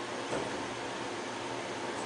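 Citizen Cincom M32 Swiss-type CNC lathe running a drilling cut: a steady machine hum with several held tones under a hiss, and a short knock about a third of a second in.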